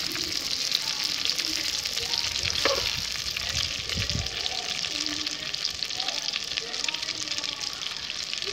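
Marinated chicken 65 pieces deep-frying in hot oil in a black pot: a steady crackling sizzle full of tiny pops. The chicken is nearly done, about to be lifted out of the oil.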